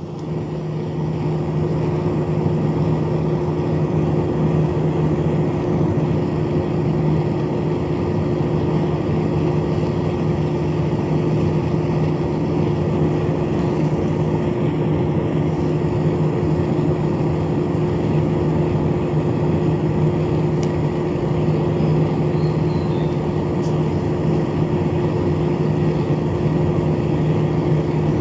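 An air conditioner's internal fan motor running steadily, a constant hum over a rush of moving air, coming up to full speed in the first second or so.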